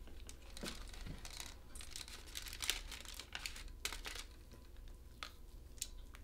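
Faint crinkling and rustling of a heart-shaped chocolate box's packaging as the lid comes off and a chocolate is picked out of the tray, with scattered small clicks.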